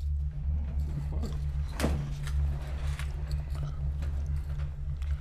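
A steady low hum, with a single sharp knock about two seconds in.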